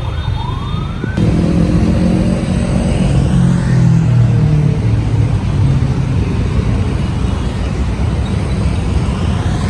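Road traffic noise with a motor vehicle passing close by, its engine note dropping in pitch as it goes past. A short rising tone sounds in the first second.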